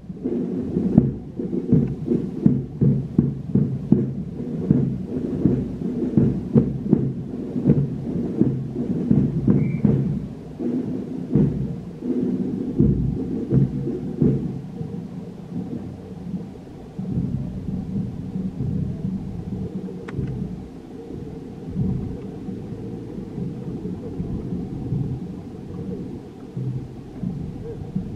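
Brass marching band playing, heard dull, mostly its low brass notes, with drum strikes a few per second through the first half. Low wind rumble on the microphone runs under it.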